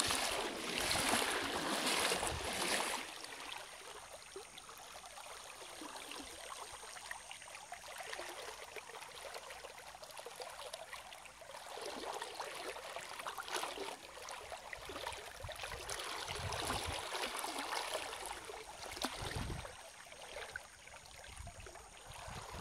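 Shallow river water running over rock shelves and algae-covered shallows: a steady rushing and trickling, loudest in the first three seconds.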